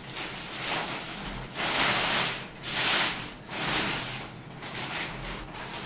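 Clear plastic packaging wrap rustling and crinkling as a carrom board is lifted and slid out of it, with three louder swells near the middle.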